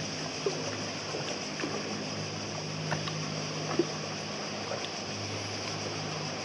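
Small water sounds against the hull of an anchored sailing yacht in calm water: scattered light clicks and splashes, the sharpest about four seconds in, over a steady low hum.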